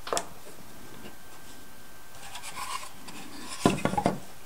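A thin wooden roof panel is set onto a model boat's wooden cabin and pressed into place, wood knocking and rubbing on wood. A sharp click comes just after the start, and a loud flurry of knocks and scraping comes near the end.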